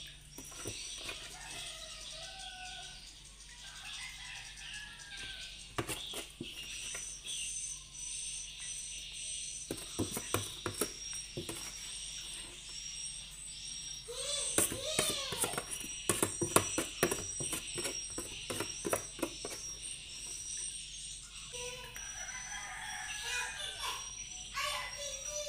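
A metal spoon scraping and knocking pounded cassava leaves out of a plastic tub onto a steel tray, in irregular clicks and taps that come thickest past the middle. A steady high insect chirping runs behind, and a few bird calls come around the middle.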